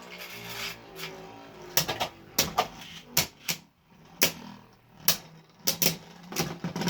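Beyblade Burst tops Valtryek and Roktavor spinning in a plastic stadium and clashing: a string of sharp, irregular clicks and knocks over a low steady whir.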